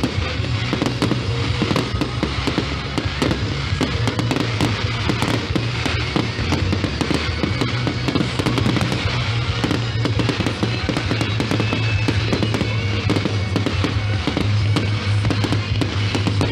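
Fireworks display going off continuously, with a dense run of rapid bangs and crackles. Music plays alongside it.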